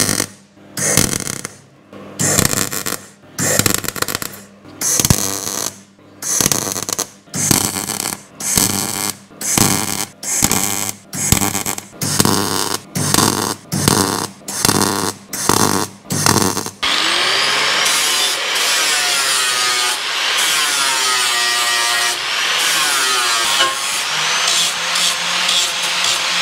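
MIG welder stitch-welding sheet steel: short crackling bursts, about one and a half a second, each about half a second long. About two-thirds of the way through it changes to an angle grinder grinding down the steel welds, a continuous grinding noise whose pitch wavers as the disc is loaded.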